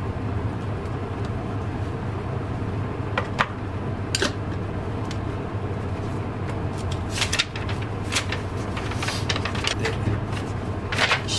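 Handling sounds on a kitchen counter: a glass jug set down and a paper instruction sheet picked up, giving a few scattered knocks and rustles over a steady low hum.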